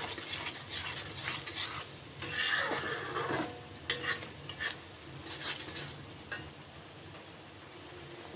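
A spoon stirring and scraping masala frying in oil in a kadhai on a low flame, in irregular strokes with a few sharp clicks against the pan and a light sizzle underneath.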